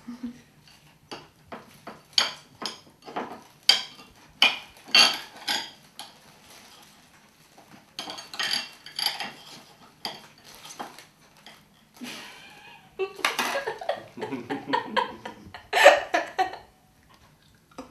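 Knife clicking and scraping against a small plate as a dragon fruit is cut, a run of sharp irregular clinks. A woman laughs in the last few seconds.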